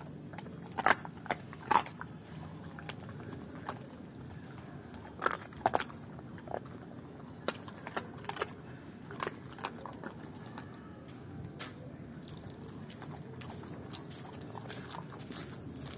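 German Shepherd chewing raw chicken legs, with sharp, irregular crunches as it bites through them. The loudest crunches come in the first six seconds, and they thin out after about ten seconds.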